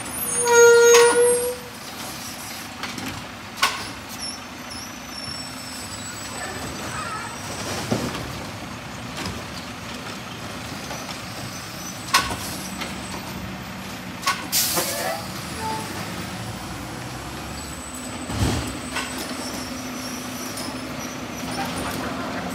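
Mack LR garbage truck's engine running while its Heil Rapid Rail automated side-loader arm dumps a cart, with several sharp knocks as the cart is handled at the hopper. A loud tone lasting about a second comes about a second in, and there is a short sharp hiss of air about two thirds of the way through. The engine is steadier and stronger near the end as the truck drives on.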